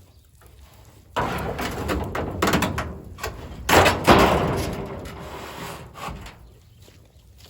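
Wooden knocks and scraping as lumber is handled, with two loud thumps close together about four seconds in.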